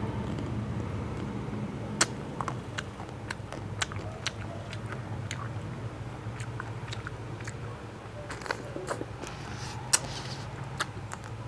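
Biting and chewing an Aice Crispy Choco ice cream bar: irregular sharp crunches from its crisp-studded chocolate coating, about one or two a second, over a steady low hum.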